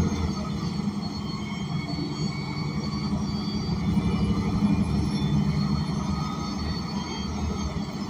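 An ENC Axess BRT city bus's Cummins Westport L9N natural-gas engine running with a steady drone, heard inside the passenger cabin along with general ride noise.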